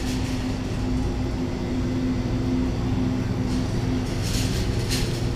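Steady low hum of a grocery store's refrigerated display cases and cooling machinery, with a couple of brief rustles about four and five seconds in.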